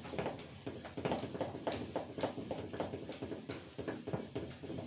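Wooden spoon beating thick cake batter in a bowl by hand, a steady run of soft knocks and scrapes at about three strokes a second. It is a last mixing of the finished vanilla cake batter.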